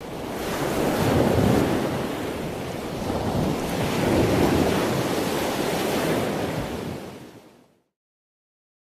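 Ocean surf: waves washing in, swelling twice about three seconds apart, then fading away near the end.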